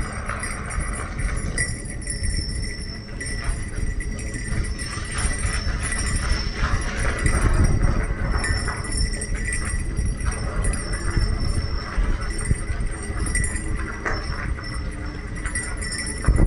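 Bicycle ride on a gravel rail trail: a steady low rumble of wind on the microphone with rattling from the bike, and faint high jingling tones over it.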